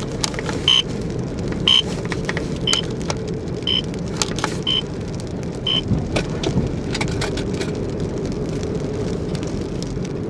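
A short high-pitched electronic beep repeating about once a second inside a moving car, which stops about six seconds in; it comes from an in-car speed-alert device that keeps sounding off about the car's speed. Steady road noise from the car runs underneath.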